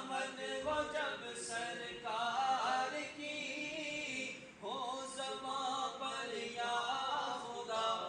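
An unaccompanied man's voice singing a naat (devotional poem) in long, wavering melodic phrases, with a short break about halfway through.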